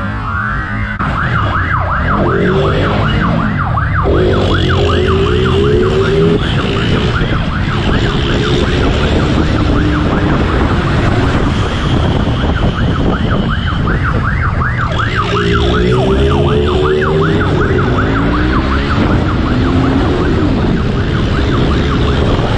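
Police siren on a fast yelp, a rising-and-falling wail repeating several times a second without a break, over the engine and wind noise of a vehicle at speed.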